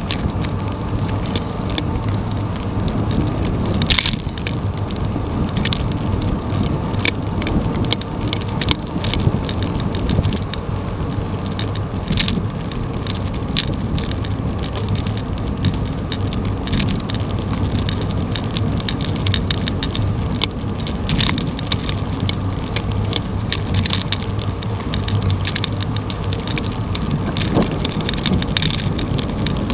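Ride noise picked up by a camera mounted on a moving bicycle on a paved trail: a steady rumble of tyres and wind on the microphone, with frequent irregular clicks and rattles as the bike goes over bumps.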